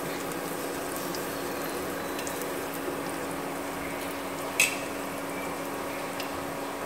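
Garlic frying in hot oil in a pan: a steady sizzle with scattered small pops over a faint steady hum. A single sharp click stands out about four and a half seconds in.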